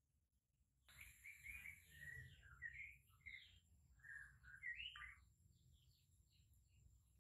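A bird singing faintly: a quick run of varied chirps and whistled notes, some gliding up, starting about a second in and stopping after about four seconds.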